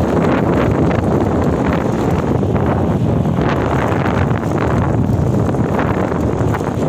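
Steady wind rushing over the microphone while riding a bicycle, with a dense, gusting noise that covers any other sound.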